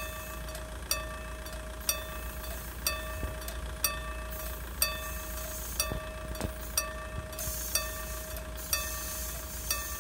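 Railway warning bell striking about once a second, each stroke ringing briefly; the signal that a train is approaching. A steady low rumble lies underneath.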